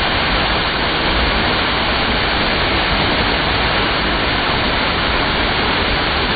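Water of a 20-metre waterfall pouring down, heard up close as a loud, steady rush of noise.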